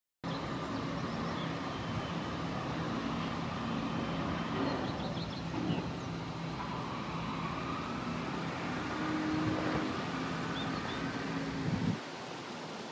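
Steady rumble and hum of distant road traffic, with a few faint high chirps over it; the low hum drops away suddenly near the end.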